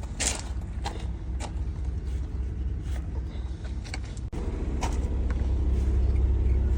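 A vehicle engine running steadily with a low hum and a few light clicks and knocks. About four seconds in there is an abrupt change, and the engine sound is louder after it.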